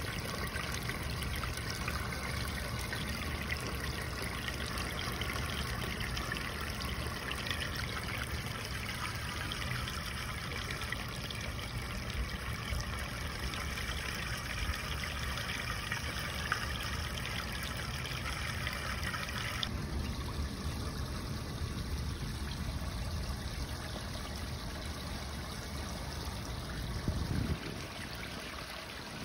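Dirty carpet-cleaning waste water gushing out of a PVC pipe on a hose into a floor drain grate, splashing steadily. The sound of the pour changes abruptly about two-thirds of the way through.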